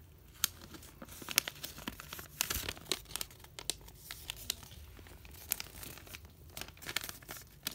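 A square sheet of origami paper being folded by hand into a square base: crinkling and rustling, with irregular sharp crackles as the creases are pressed and the flaps squashed flat.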